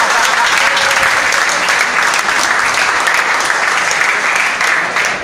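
Audience applauding, steady dense clapping close by.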